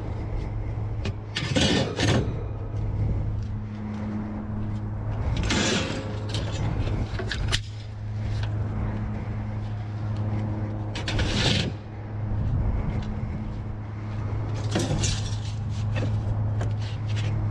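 Steady low hum of an idling vehicle engine, with clanks and scrapes of scrap metal several times as pieces of ducting and steel are handled and loaded.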